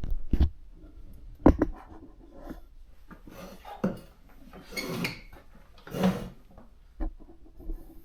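Handling noise from typewriters being moved about: several separate knocks and clunks, with a couple of short scraping or rustling sounds in the middle.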